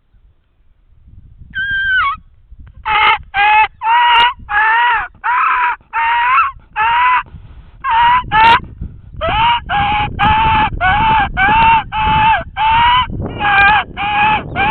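Dying-rabbit distress call blown on a diaphragm turkey mouth call: a long run of short, nasal squalls, each bending slightly down in pitch, about two to three a second, with one short break partway through. A low rumble sits underneath in the second half.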